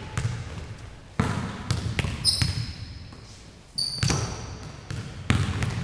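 A basketball bouncing on a hardwood gym floor and being caught, a series of sharp thumps that echo in the large hall, with two short high sneaker squeaks about halfway through.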